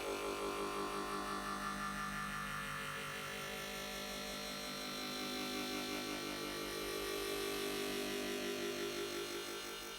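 A pouring-water-into-a-glass sound effect layered on itself over and over into a dense, droning wash of many held tones with a fast, even flutter, no longer heard as water.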